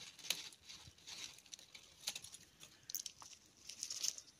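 Mulch rustling and crackling as it is tipped and spread by hand around the base of a terrarium plant, in short irregular spells.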